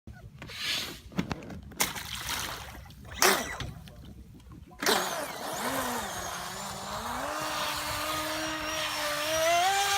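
A few sharp knocks and clicks, then, about halfway through, the FT012 RC speed boat's brushless electric motor starts up with a steady whine that slowly rises in pitch.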